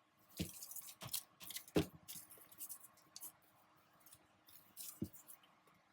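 Sheets of paper being handled at a craft table: irregular crinkling and rustling, with a few soft taps of paper and tools set down, the loudest about two seconds in.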